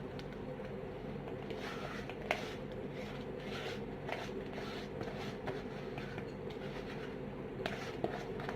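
Raw Gobindobhog rice being poured into the cooking dish: a soft rustle of grains with a few light clicks, over a steady low hum.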